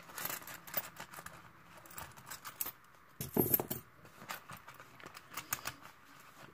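Clear plastic zip envelopes rustling and clicking as they are handled and pulled out of a cash-envelope wallet, with a louder rustle a little past halfway through.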